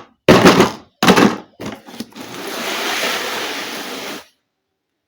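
Handling of a toy kitchen play set during unboxing: several short knocks and clatters, then about two seconds of steady hiss that cuts off suddenly.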